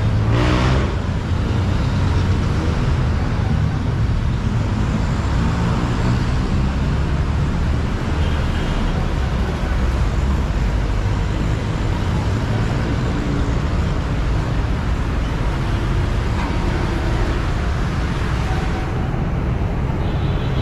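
Road traffic on a multi-lane road below: a steady rumble of passing cars and motorcycles. About half a second in, one vehicle's engine note briefly rises and falls in pitch.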